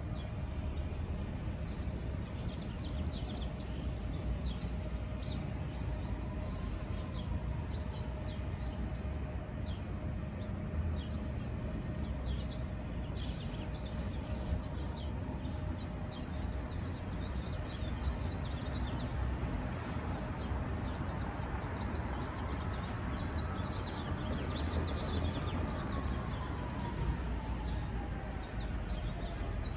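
Small birds chirping over a steady low rumble of street traffic, with a car driving up near the end.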